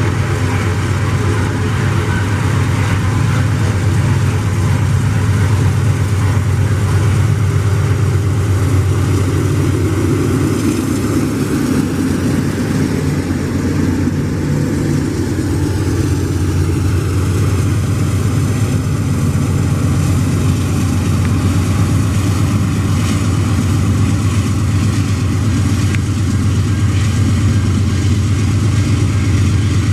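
GE AC44i diesel-electric locomotives running with a steady low drone as an iron-ore train passes at low speed.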